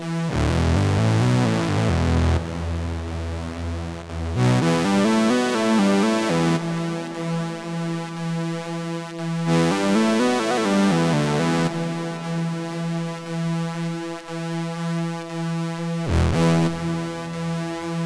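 AJH Synth MiniMod Eurorack modular synthesizer playing a jam: a sustained note rich in overtones, with short runs of quickly changing lower notes coming in every few seconds.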